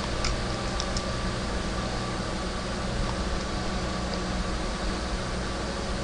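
Steady background hiss with a low hum, and a few faint computer mouse clicks in the first second as a report link is clicked open.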